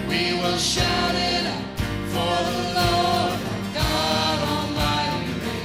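A worship song played by a band, with voices singing over it and regular drum hits.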